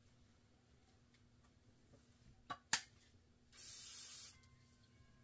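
WD-40 aerosol can sprayed in one short hiss lasting a little under a second, about three and a half seconds in. Two sharp clicks come just before it.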